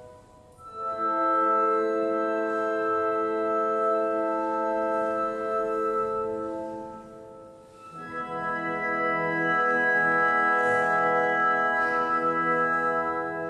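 Orchestra playing long held chords. The first swells in about a second in and fades out around seven seconds. A second chord with a deeper bass comes in around eight seconds and is held nearly to the end.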